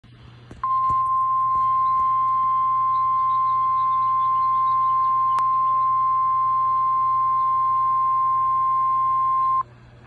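Handheld NOAA weather radio sounding the steady 1050 Hz warning alarm tone through its small speaker. The single unbroken tone starts just under a second in, holds for about nine seconds and cuts off suddenly. It is the alert that signals a severe thunderstorm warning is about to be read.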